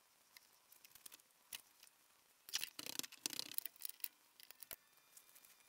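Scattered light clicks and knocks of wooden pieces being handled. Then, from about two and a half seconds in, roughly a second and a half of rapid clicking and rattling as a one-handed bar clamp is squeezed tight onto the glued-up wooden handle.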